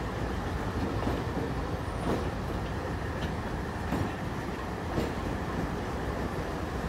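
Delaware-Lackawanna diesel locomotives rolling slowly over a grade crossing: a steady low engine rumble, with a sharp wheel click about once a second.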